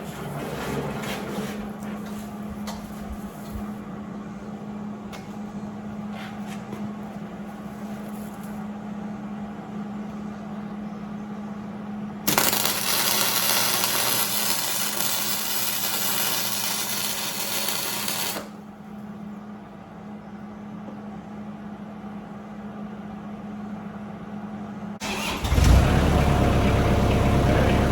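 A steady low hum, with a loud, even hissing rush for about six seconds in the middle. Near the end an engine starts suddenly and keeps running.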